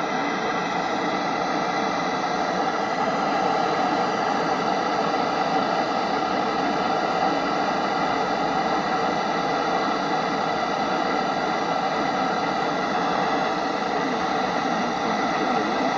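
Steady hiss of static, even throughout, with faint steady tones running through it.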